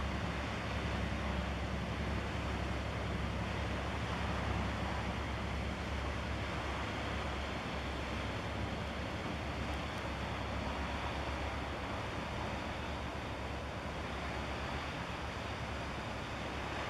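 Steady low engine drone from a passing bulk carrier, under an even hiss of wind and sea.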